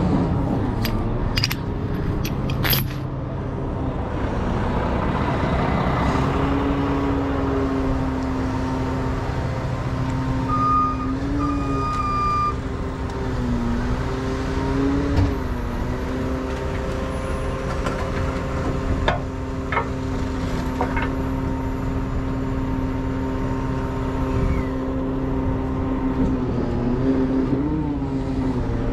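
Heavy rotator wrecker's diesel engine running at a steady raised speed, its pitch dipping and recovering a few times. A few sharp clinks in the first three seconds and two short beeps about eleven seconds in.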